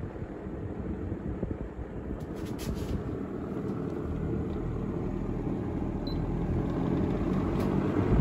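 A Lasko Model 1600 electronic window fan running: a steady low rush of air from the blade over a faint motor hum, growing gradually louder. There are a few light clicks near three seconds in and one short high beep about six seconds in, as its touch-pad controls are worked.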